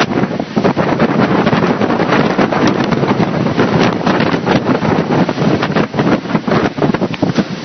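Strong, gusty storm wind buffeting the phone's microphone: a loud, rough rush with constant crackling pops.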